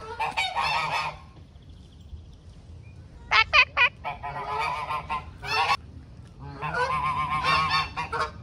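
Domestic grey goose honking in bouts of fast, harsh calls: one run at the start, three short single honks a little after three seconds in, then longer runs.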